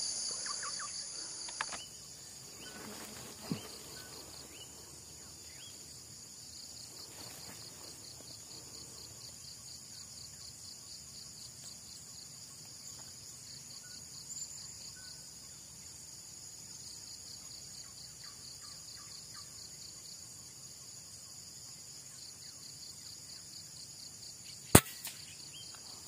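Steady high insect chorus of cicadas and crickets, with a few faint ticks. About a second before the end comes a single sharp crack of an air rifle shot, the loudest sound.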